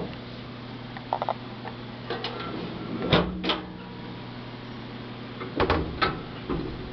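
Metal clunks and clicks as a slide-out metal tray and its fittings are worked in a trailer's storage compartment: about five separate knocks, over a steady low hum.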